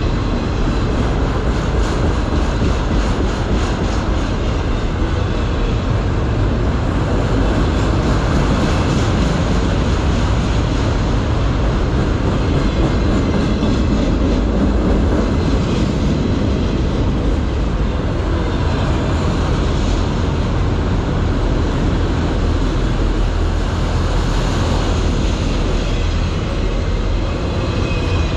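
Freight train of autorack cars rolling past: a loud, steady rumble of steel wheels on the rails.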